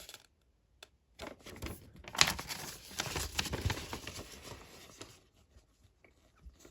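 Paper rustling as a small instruction booklet is handled and its pages turned, a few seconds of irregular crinkling that stops about five seconds in.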